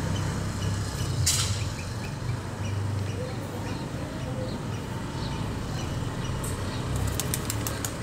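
Outdoor background: a steady low rumble with scattered faint chirps, a short hiss about a second in, and a quick run of clicks near the end.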